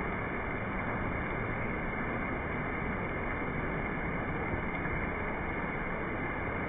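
Heavy rain pouring steadily onto a paved path, grass and trees.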